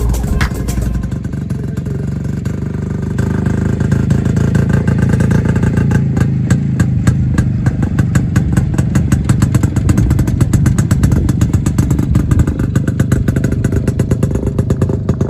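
Two-stroke engine of a restored 1979 Yezdi/Jawa motorcycle running with a rapid, even exhaust beat, picking up a few seconds in.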